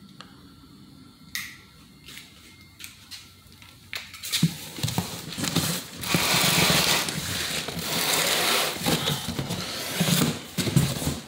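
Long cardboard box being handled and opened, with its flaps scraping and rustling. After a few light clicks it starts about four seconds in and goes on in irregular surges.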